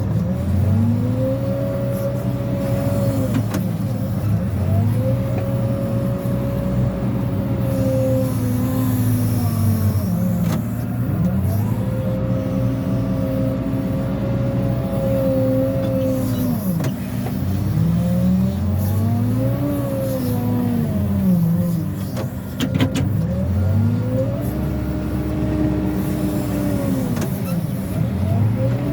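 Cat 416F2 backhoe loader's four-cylinder diesel engine working, its pitch climbing and falling back again and again as the machine is revved for each loader pass. A few sharp knocks are heard along the way.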